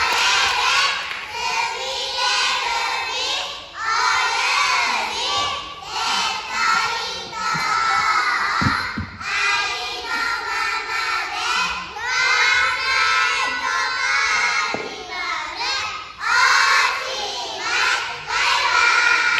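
A group of young children's voices in unison on stage, singing or chanting together in phrases of a few seconds with short breaks between them.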